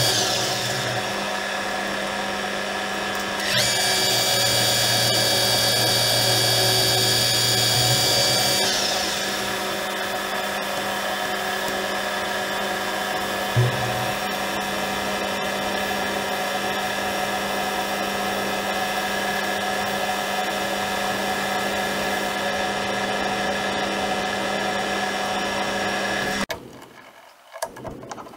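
Metal lathe running, with a steady machine whine, while a cutting tool cuts a spinning metal workpiece; the cut is heavier for the first several seconds. A single sharp knock comes about halfway through, and the lathe shuts off abruptly near the end.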